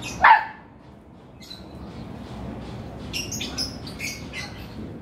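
A single short, loud squeal about a quarter second in, falling in pitch, then small birds chirping in quick high bursts through the second half.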